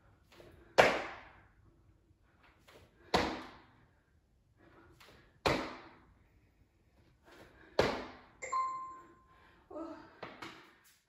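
Sneakered feet landing on a hardwood floor from jump squats: four hard thuds about two seconds apart, each ringing briefly in the small room. Just after the fourth landing a short steady tone sounds, and the jumping stops.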